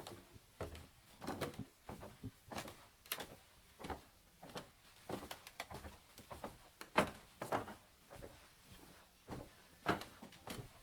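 Footsteps on a wooden floor, uneven steps about two a second, a few heavier than the rest.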